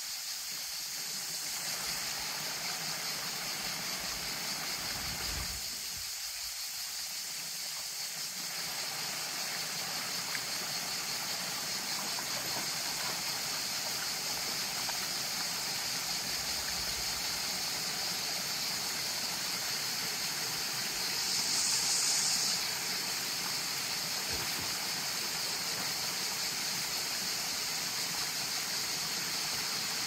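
Shallow rocky stream running steadily over small cascades, briefly louder about two-thirds of the way through.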